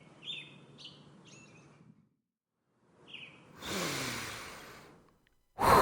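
A few short, high bird chirps over a faint low hum, then after a pause a long breathy sigh with a falling pitch that fades out. A sudden loud rush of noise starts right at the end.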